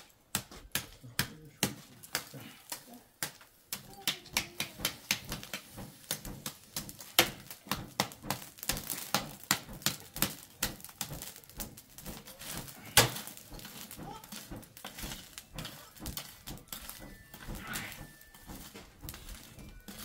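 Irregular sharp clicks and clinks, often two or three a second, with one louder knock about 13 seconds in: a metal rod raking and knocking pieces of charcoal in an open fire pit.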